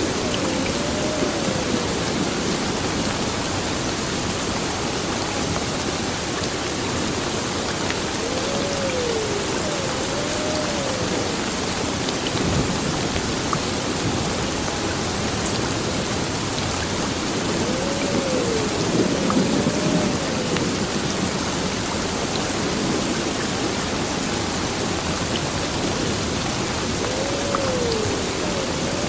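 Heavy rain pouring steadily onto an old building, with a dense, even hiss. Thunder rumbles low in the background, and a low swell with a faint wavering tone comes back about every nine seconds.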